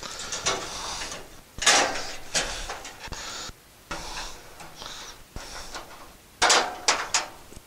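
Hands fitting a small cover under a stainless-steel grill's control panel: irregular scraping, rustling and clicking of parts against the metal cabinet, with louder clatters about a second and a half in and again near the end.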